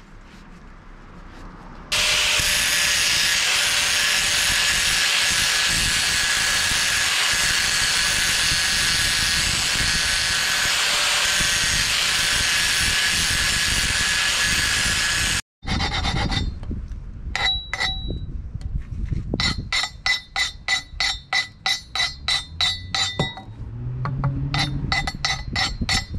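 Angle grinder running at speed, a loud steady whirr with a fixed whine, for about thirteen seconds. It stops abruptly. Later comes a run of sharp, ringing metal-on-metal strikes, about three a second, as a metal rod is pounded down inside a steel tube.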